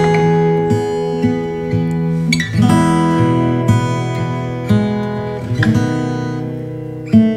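Background music: an acoustic guitar playing, with plucked and strummed chords.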